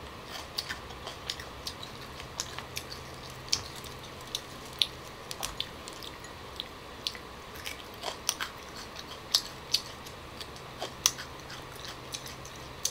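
A person chewing young green tamarind pods: irregular crisp crunches, about two a second.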